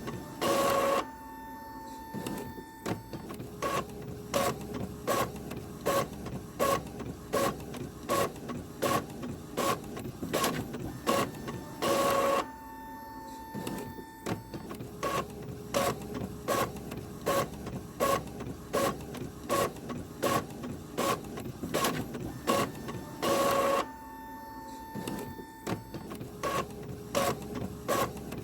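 Printer running through a print cycle over and over: a loud whirring feed about every eleven and a half seconds, followed by a steady tone and a long run of quick regular clicks as the mechanism advances.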